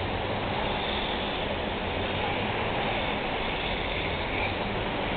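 Steady outdoor background noise: an even rushing hiss with no clear tones or sharp hits, and faint voices in it.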